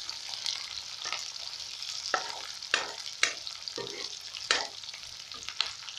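Sliced onions sizzling in hot oil in a kadhai while a spatula stirs them, knocking and scraping against the pan in irregular sharp clacks over a steady hiss.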